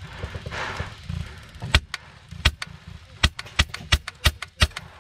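Airsoft gun firing a string of single shots, sharp snapping cracks that start about a third of the way in and come faster toward the end, about three a second.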